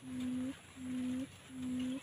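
Decoy quail's low hooting call, an even half-second note repeated steadily, each note turning up slightly at its end, used to lure wild quail to the trap cage.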